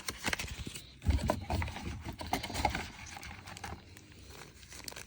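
Irregular taps, knocks and rustling as the pen's accessories and packaging are handled and put away, with a few heavier thumps in the first half.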